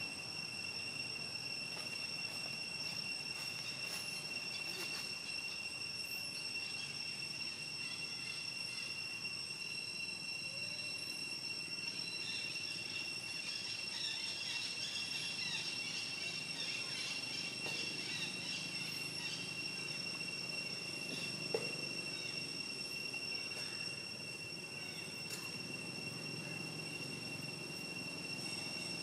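Steady high-pitched insect drone, one unbroken tone with a fainter higher overtone, over a background of outdoor ambience. Fainter scattered chirps come through around the middle, and a single short knock sounds about two-thirds of the way in.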